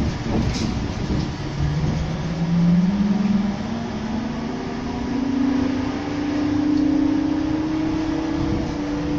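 Škoda 28Tr trolleybus's electric traction drive whining and rising steadily in pitch as it accelerates, over the rumble of the ride inside the cabin. A couple of knocks sound near the start.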